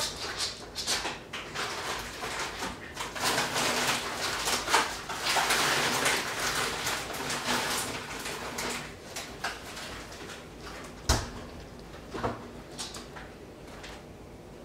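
Fleece blankets rustling and scuffing as a Welsh corgi puppy moves about its bedding, with scattered light clicks and one sharp knock about eleven seconds in.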